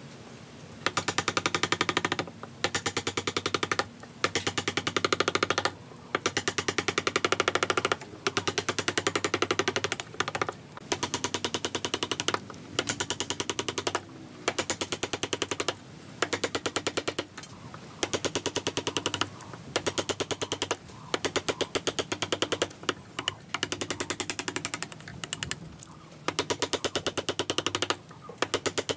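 Power chisel hammering into wood in rapid, machine-fast blows, in bursts of one to two seconds with short pauses between, chopping waste out of a joint.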